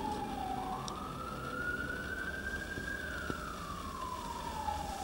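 Emergency vehicle siren wailing: one tone sweeping slowly up and then back down over about four seconds, starting to rise again near the end, over a low steady rumble.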